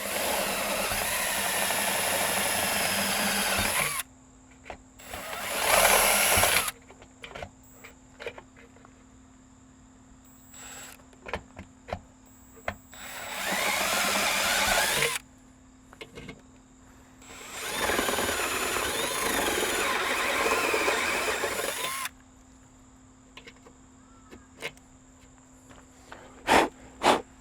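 Power drill with a unibit step bit boring a mounting hole out to 1/4 inch for M6 bolts, in four separate runs of a few seconds each with pauses between. A few sharp clicks come near the end.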